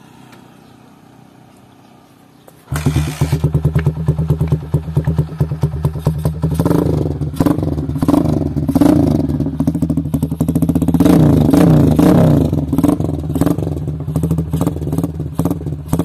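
Honda TMX 155's single-cylinder four-stroke engine starts about three seconds in and runs loud through an aftermarket exhaust with its silencer insert removed. It is revved up and down repeatedly through the middle and settles back near the end.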